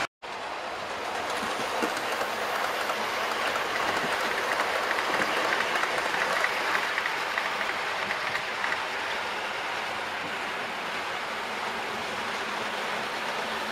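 Model trains running on the layout's track: a steady rattle and clickety-clack of wheels on rail. It is a little louder in the middle as a rake of coaches passes close by.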